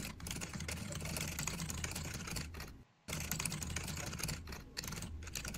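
Rapid typing on a computer keyboard, fast clicking keystrokes over a low steady hum, broken by a brief silent gap about three seconds in.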